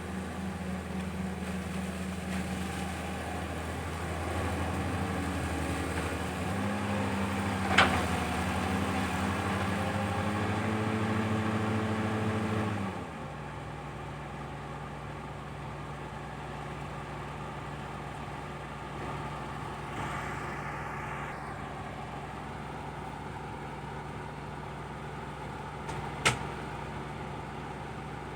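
CAT 320 hydraulic excavator's diesel engine running, its note climbing and growing louder as it works, then dropping to a lower, steadier note about halfway through. Two single sharp knocks stand out, one early and one near the end.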